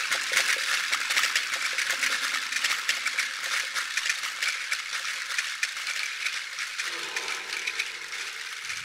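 Dense, continuous rattling crackle of many tiny clicks, the improvised texture of a live experimental sound performance, slowly growing quieter.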